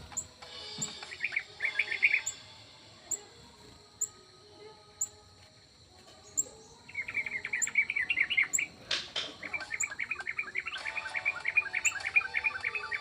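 Small aviary birds chirping in quick twittering bouts: a short one about a second in, then longer runs of rapid chirps from about seven seconds in. A single sharp click comes about nine seconds in.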